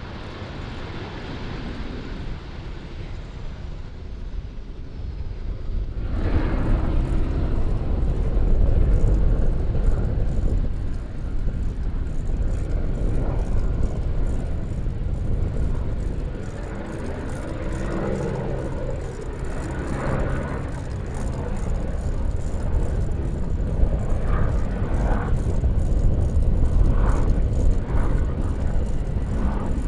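Jet airliner engines rumbling, a steady deep noise that jumps louder about six seconds in and then swells and eases.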